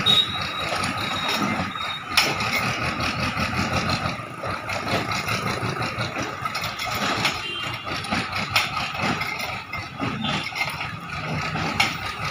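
JCB backhoe loader's diesel engine idling steadily, with a few sharp knocks.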